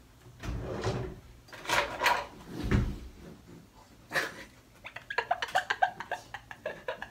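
Several dull thumps and knocks of a bed frame giving way as someone sits on it, the heaviest about three seconds in. A burst of quick laughter follows near the end.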